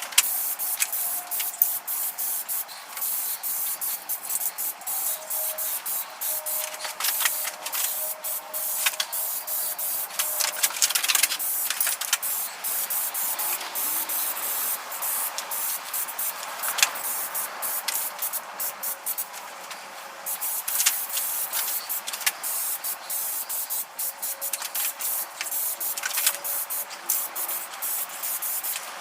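Spray paint hissing in a run of short passes with brief gaps between them, as a second coat of paint is laid on.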